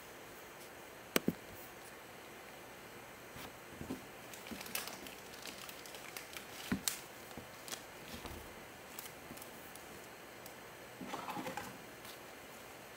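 Gloved hands handling a trading card and a clear plastic card holder: soft taps and plastic rustling, with two sharp clicks about a second in and a short rustle near the end as the card is slid into the holder.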